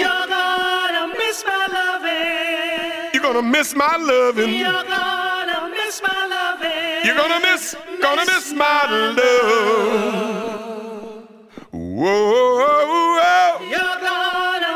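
Male voices singing a cappella in sustained harmony, the words not clear. About eleven seconds in the singing briefly fades, then a low voice swoops upward as it comes back in.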